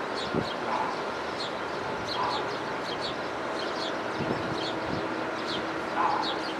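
Small songbirds chirping steadily, short high chirps about two a second. A lower call cuts in three times, the loudest near the end.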